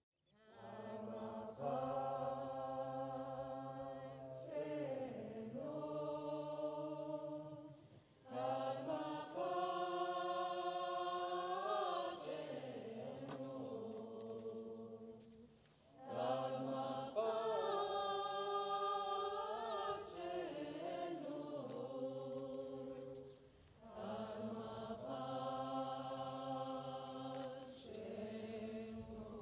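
Several voices singing a slow, melodic chant in held, gently gliding phrases a few seconds long, with brief pauses between phrases.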